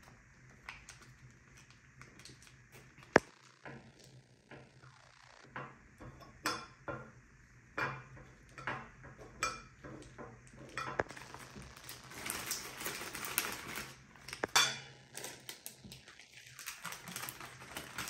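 Metal fork clicking and scraping against a ceramic plate and a plastic sauce sachet as the sauce is pressed out onto noodles, in scattered short clicks with a denser scraping stretch about twelve seconds in. A single sharp click about three seconds in is the loudest sound.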